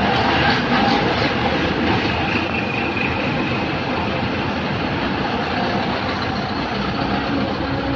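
Tour bus running steadily, with a broad, even engine and road noise and no horn call.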